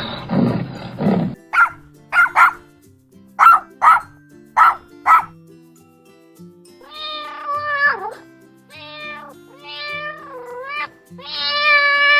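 A dog barking with about seven short, single barks, followed by a cat meowing four times, the last meow long and drawn out. Soft background music plays underneath, and the first second holds the rough tail end of an animal's roar.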